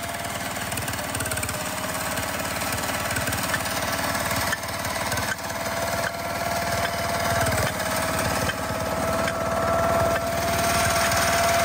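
Small engine of a motorised winch running steadily while it hauls in a seine net, its note holding with a couple of brief dips and growing gradually louder.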